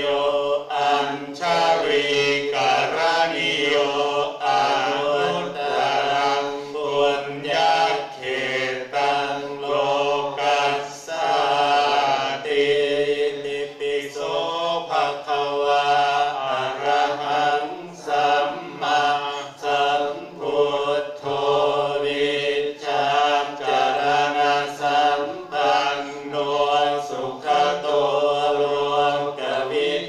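Group of voices chanting Buddhist Pali verses in unison, a continuous recitation held near one pitch with short breaks for breath.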